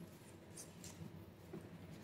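Faint rustle and soft flicks of a stack of Pokémon trading cards being handled and slid in the hands, over a low steady room hum.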